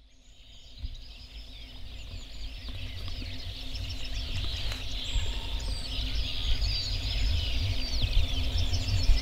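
Several birds singing and chirping together, many short calls overlapping, fading in from silence at the start and growing louder, over a low rumble.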